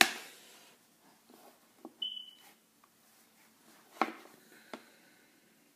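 Light knocks and taps of watches being handled on a wooden tabletop: a sharp click at the start and two more knocks about four seconds in, as a watch is picked up. A single short, high beep sounds about two seconds in.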